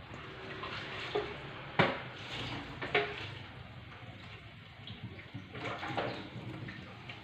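Water splashing or running in a kitchen, with a few sharp knocks, the loudest about two seconds in.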